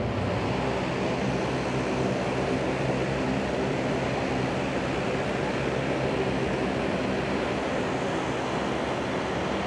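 Aircraft engine running with a steady drone and a faint low hum, unchanging throughout.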